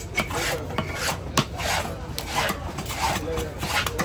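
Large knife scraping the scales off a whole fish on a wooden chopping block: quick repeated rasping strokes, a few a second, with one louder knock about one and a half seconds in.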